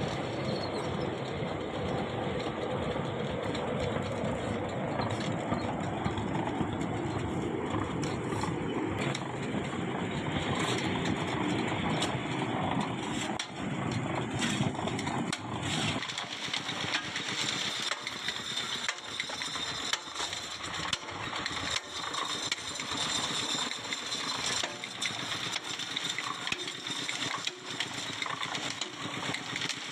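Concrete spun-pipe machine running, its steel mould turning on the drive wheels with a steady, dense machine noise. About halfway through, the low part of the noise drops away, leaving a higher clattering sound with scattered small knocks.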